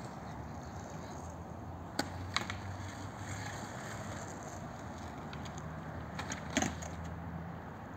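Sharp clacks of skateboard and scooter wheels and decks striking a concrete skatepark: two about two seconds in and a quick cluster near the end, over a steady low hum.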